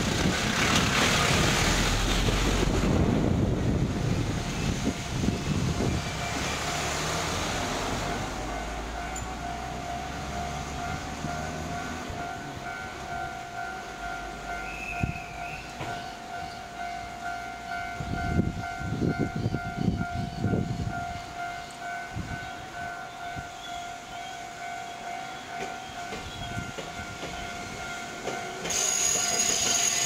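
At first a small truck and a car drive over the level crossing. Then a Japanese level-crossing warning bell rings on, a steady, quickly repeating two-tone clang. Near the end an Iyo Railway train arrives at the crossing with a sudden rush of wheel noise and a high squeal.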